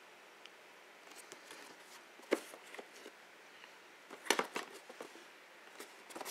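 Cardboard product box handled and turned over in the hands: scattered light knocks and scrapes of the card, loudest about two seconds in, with a cluster of them around four and a half seconds.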